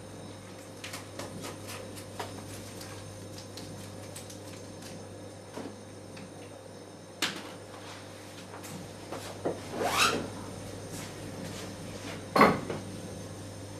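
Kitchen handling sounds at the counter: light clicks and knocks of a metal bowl and utensils, a sharp knock about seven seconds in, a scraping slide around ten seconds, and a louder clatter about twelve seconds in. A steady low hum runs underneath.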